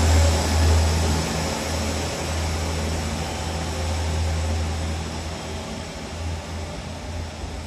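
Diesel engines of a KiRoShi 47 railcar pair (rebuilt KiHa 47 diesel railcars) running as the train departs and pulls away. A low, steady rumble fades as the train recedes.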